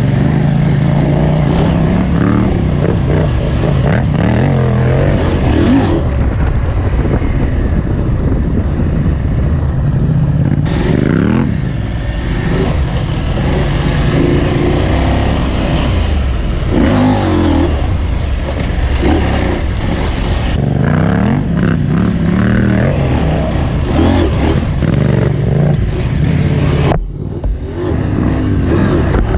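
Parallel-twin adventure motorcycle engine working hard off-road, revving up and easing off again and again as the bike climbs and turns on rough ground. The sound breaks off briefly near the end.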